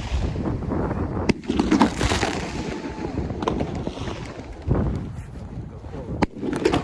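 Wind buffeting the microphone, with a few sharp cracks about a second in and again near the end.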